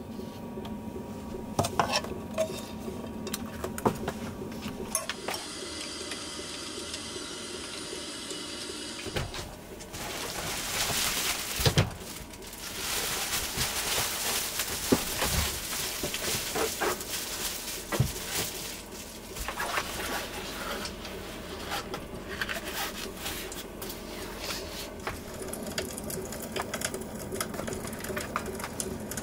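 Kitchen handling sounds: scattered clicks and clatter of dishes and utensils, with a stretch of steady hiss in the middle.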